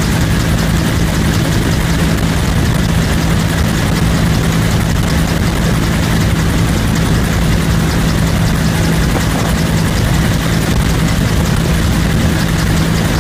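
Bell UH-1 Huey helicopter in cruising flight, heard from inside the cabin: its turbine and two-blade main rotor make a loud, steady drone with a low hum.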